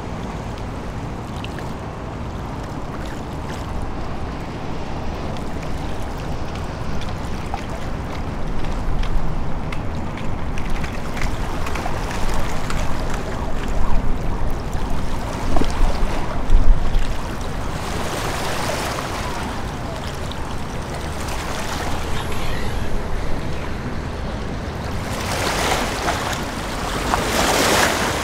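River motor ship passing close by: a steady low engine rumble under the wash of water, with wind on the microphone. Louder hissing gusts come near the end.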